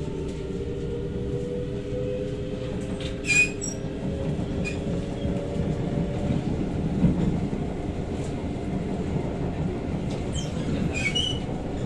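Interior sound of an SMRT C751B metro train running slowly on track: a steady rumble with a faint motor whine that rises slightly in pitch and fades out about halfway. A sharp click with a brief high squeak comes about three seconds in and again near the end.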